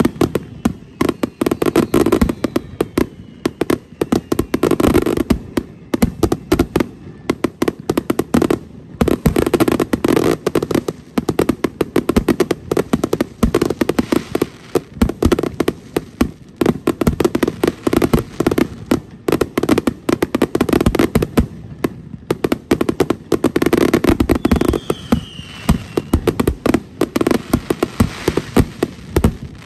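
Consumer fireworks going off in a dense, continuous barrage of aerial bursts: rapid, overlapping bangs, with a short falling whistle late on.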